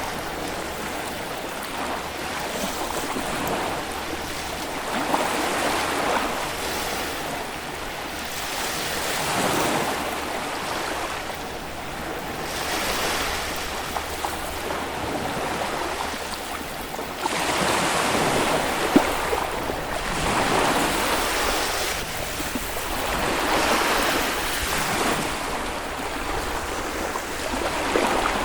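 Small Baltic Sea waves breaking and washing on a sandy beach, the surf swelling and easing every few seconds, louder in the second half.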